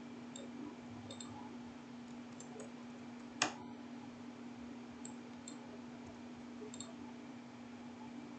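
Faint, scattered clicks of a computer keyboard and mouse, with one sharper click about three and a half seconds in, over a steady low hum.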